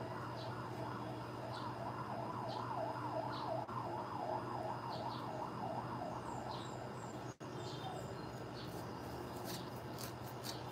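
A distant siren wavering quickly up and down, about three or four swings a second, stopping about two-thirds of the way through. Short high bird chirps repeat about once a second behind it.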